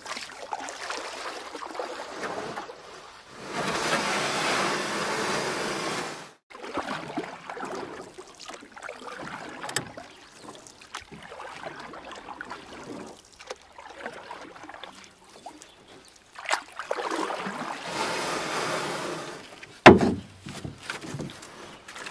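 Kayak paddling: the paddle blade dipping and pulling through calm water, with two longer splashing strokes close by and drips and small clicks between them. A sharp knock near the end.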